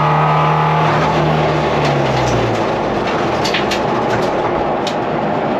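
Ford Fiesta rallycross car heard from inside the cabin on track: the engine note falls as the revs drop over the first two or three seconds, leaving mostly rough road and wind noise. There are a few sharp clicks about three to five seconds in.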